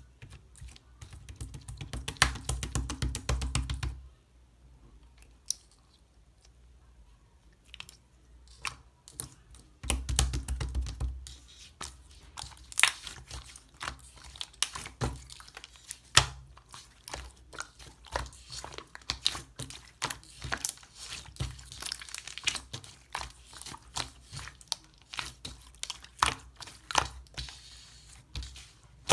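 Hands squishing, poking and stretching slime, making a steady stream of wet popping and crackling clicks. Two stretches of low rumbling handling noise come early and again about ten seconds in.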